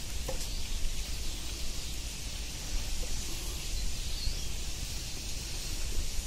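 Steady outdoor background hiss with a low wind rumble on the microphone. A couple of faint taps come as boiled egg halves and yolks are handled on a steel plate.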